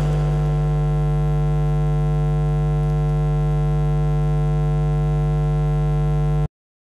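A steady, unchanging electronic hum with a low buzz, holding one pitch, which cuts off abruptly near the end into silence.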